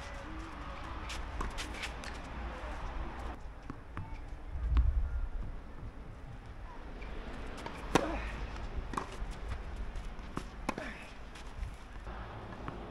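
Tennis ball struck by rackets and bouncing on the court: a few sharp pops at uneven gaps, the sharpest about eight seconds in. A short low rumble on the microphone about five seconds in.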